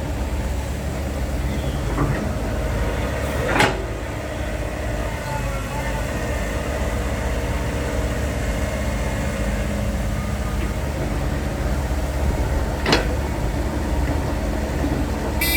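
Six-wheel dump truck's diesel engine running steadily, with three sharp knocks spread through, and a horn toot beginning at the very end.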